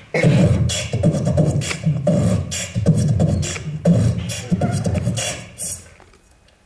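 A man beatboxing into a handheld microphone: rhythmic deep kick-drum thumps mixed with short hissy hi-hat and snare strokes, a few beats a second, stopping shortly before the end.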